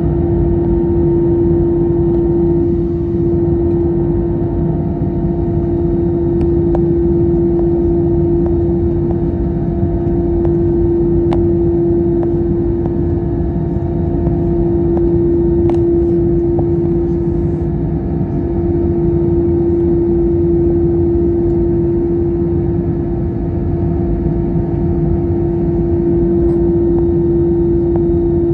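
Steady jet engine and airflow rush heard inside the cabin of an Airbus A321neo airliner, with a constant droning tone that holds level. A couple of faint clicks stand out briefly.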